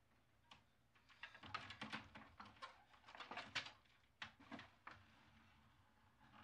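Faint clattering and rustling as a wooden louvered closet door is pushed open from inside: a quick run of small clicks and rattles.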